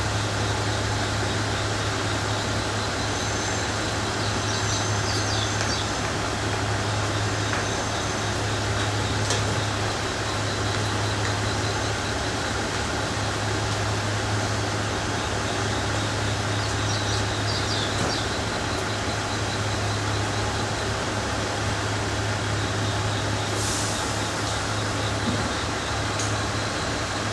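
Steady ambient noise of a railway station platform at night: a constant low hum under a wash of noise, with a few faint high ticks and chirps.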